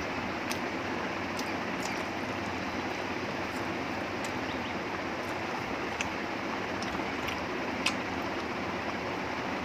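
A steady hiss throughout, with a few soft, scattered clicks of eating by hand: fingers mixing rice and chicken curry on a plate, and chewing. One click is a little louder near the end.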